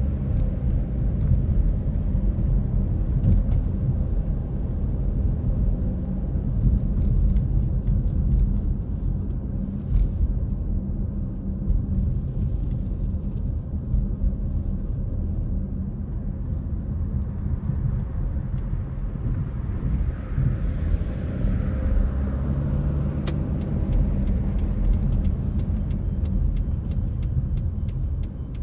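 A car driving at a steady pace, with low engine and road rumble throughout. A swell of higher hiss comes in about twenty seconds in and fades after a few seconds.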